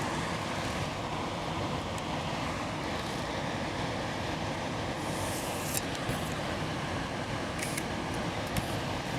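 Steady rushing background noise with a faint low hum, and a few light clicks about five and a half and seven and a half seconds in.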